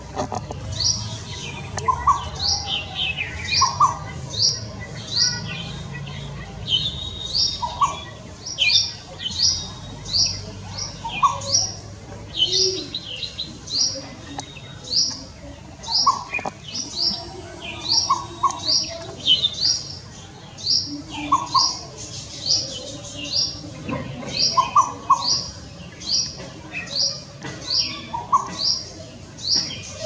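Bird calls: a long series of short, sharp, rising high-pitched notes, about two a second, with a few lower calls now and then.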